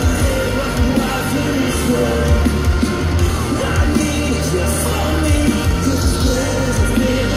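Live rock band playing a loud metalcore song through a PA, with distorted guitars, heavy bass and drums, and a lead vocalist singing and shouting.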